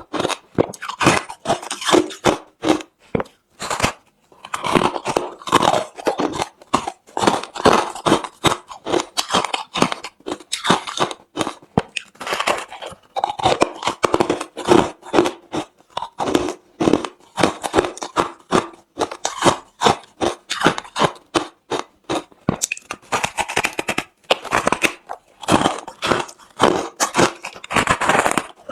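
Close-miked chewing of hard, refrozen crushed ice: rapid, irregular crunches several times a second, with a brief pause about four seconds in.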